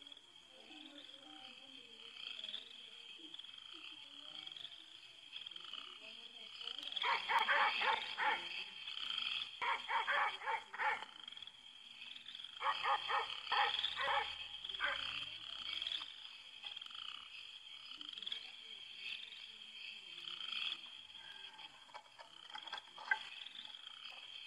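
Frogs croaking at night in runs of rapid pulses, three loud runs near the middle, over a steady high-pitched chirring of night insects.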